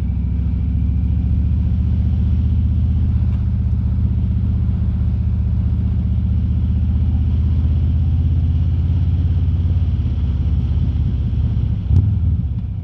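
Harley-Davidson Road King's V-twin engine running steadily on the move, a deep low drone, with wind noise over it, heard from a mic inside the rider's helmet. A short sharp knock sounds near the end.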